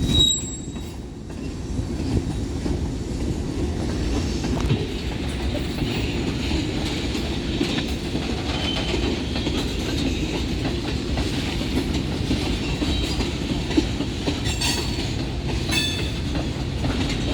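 Freight cars of a long Union Pacific manifest train rolling past: a steady rumble of steel wheels on rail with clickety-clack over the joints, and a faint high wheel squeal about halfway through.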